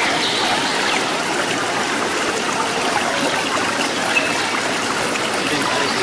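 Steady rush of water pouring into a rocky pool, with faint shouts of people in the background.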